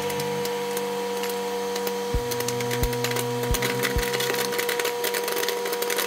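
Whirlpool over-the-range microwave oven running on its popcorn cycle, a steady hum under a bag of popcorn kernels popping, the sharp pops coming thicker from about two seconds in. A few dull thumps come through now and then.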